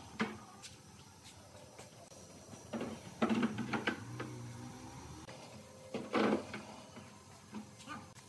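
Wooden boards being slid and set down on a platform of plastic crates: scraping and knocking about three seconds in and again at about six seconds, with light clicks between.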